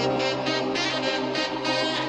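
Electronic background music: held synth chords under a high synth pattern that pulses on and off a few times a second.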